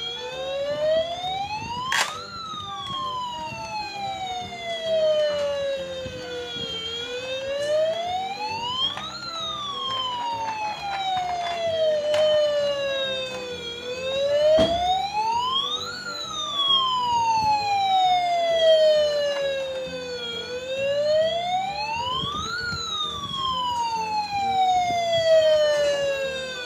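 Toy fire truck's electronic siren wailing, each cycle rising quickly and falling slowly, repeating about every six to seven seconds. A couple of brief knocks come from the toy being handled.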